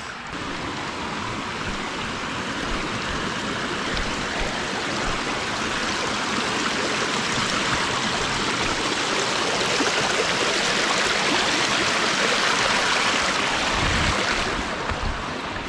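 A mountain stream running, a steady rush of water that swells slowly toward the middle and eases off about a second before the end.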